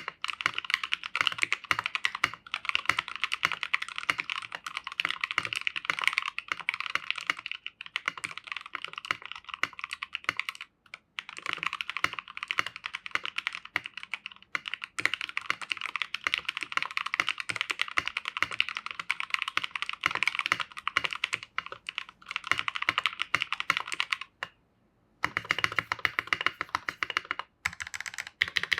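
Fast, continuous typing on a custom 65% mechanical keyboard in an acrylic sandwich-mount case, with lubed Gateron Yellow KS-3 linear switches and KAM Wraith keycaps. The keystrokes run as a rapid stream, with brief pauses about eleven seconds in and again near twenty-five seconds.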